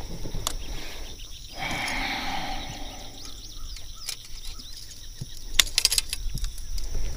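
Outdoor pond-side ambience: a steady high insect drone with bird chirps, and a short burst of sharp clicks a little before the end.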